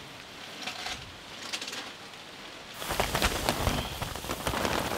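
Potatoes being emptied from a jute sack onto a woven grass mat: soft rustling of the sack, then about three seconds in a dense patter of many potatoes tumbling and knocking together.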